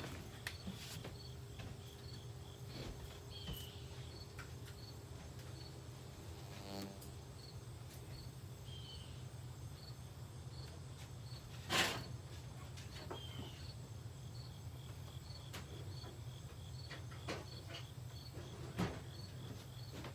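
Cricket chirping in a steady, even rhythm over a low steady hum, with a few faint knocks and one sharper knock about twelve seconds in.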